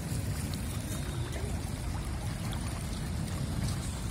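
Steady splashing and churning of water from a dense crowd of catfish thrashing at the surface as they feed.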